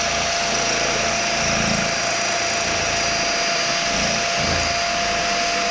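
Electric drill running steadily at constant speed, drilling out a snapped bolt in a pit bike's frame, with a steady whine over the motor noise.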